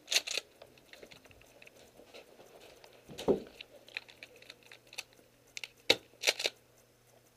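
Tokyo Marui M870 Breacher gas airsoft shotgun being fired and pumped: sharp clacks, a quick pair just after the start, then a single sharp pop followed by a quick pair near the end. A duller thump about three seconds in, and light crunching on wood chips in between.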